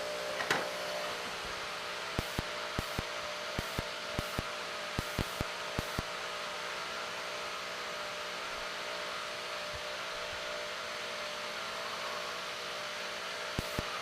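Steady whirring hum of an electric motor or fan, with a scattering of small sharp clicks for a few seconds about two seconds in and again near the end.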